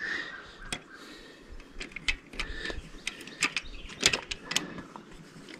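Light, irregular metal clicks and taps as a valve spring compressor is fitted over the camshaft and rocker arm of a V8 cylinder head.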